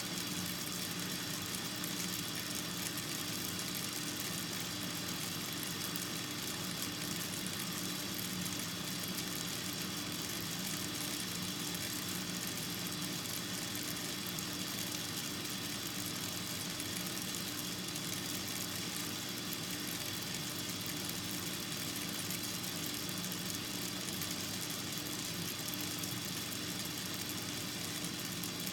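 A steady, unchanging mechanical hum with a few constant tones.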